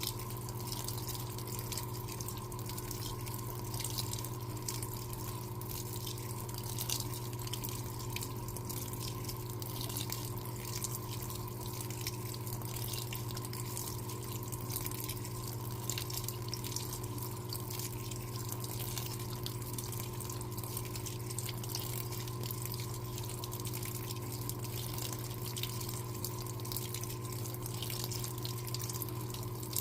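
Electrolux LTA15 washing machine running a wash, water splashing and trickling into the drum over a steady low hum, with no change or break.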